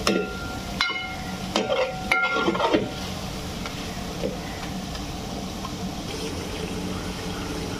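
Steel ladle stirring chicken masala in a large aluminium handi, knocking against the pot several times in the first three seconds so that the metal rings. Under it the masala sizzles steadily, and the sizzle goes on alone after the stirring stops.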